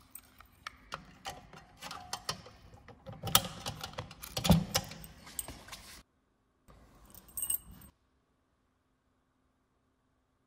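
Keys jangling and small metal clicks as a lockout padlock and its keys are handled: an irregular series of clicks and rattles, the loudest about four and a half seconds in. It cuts off suddenly about six seconds in, and a short rattle of keys follows.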